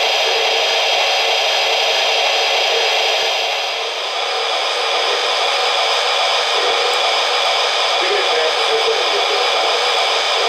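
Steady hissing turbine sound played through the small speaker of a Lionel PRR S2 steam turbine model locomotive standing with its smoke units running, with a slight dip about four seconds in.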